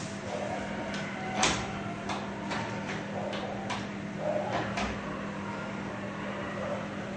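Microwave oven running, a steady low hum, with several sharp clicks scattered through it.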